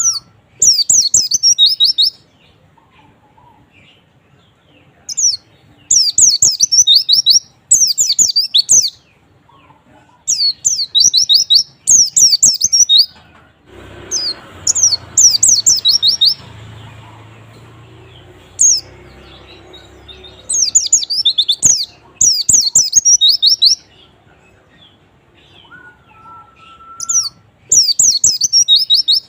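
Pleci (white-eye) singing: rapid, high twittering phrases of one to two seconds, repeated with short gaps, with a soft hiss in the middle. It is a lure song of the kind played to prompt caged pleci to sing.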